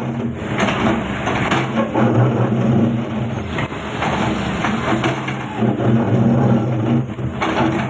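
Doosan excavator's diesel engine working under load, its note swelling and easing every second or two as the hydraulics dig, with short knocks and crackles mixed in.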